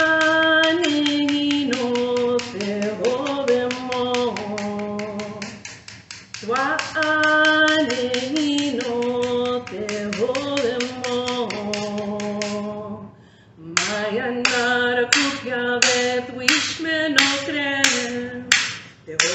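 A woman singing a prayer song solo, keeping time with a wooden clapper stick struck against her palm: a fast steady run of clacks under the singing, then after a short break about two-thirds of the way through, slower clacks about two a second.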